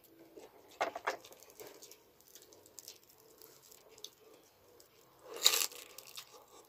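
Crispy chicharon (deep-fried pork rind) crackling as it is handled, with a couple of sharp crackles about a second in, then a loud crunch about five and a half seconds in as a piece is bitten.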